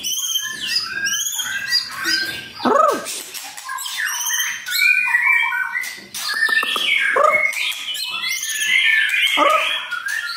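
Caged white-rumped shama singing a continuous, varied song of quick whistles, chatters and sweeping notes, with steep downward-slurred calls about three seconds in and again near the end.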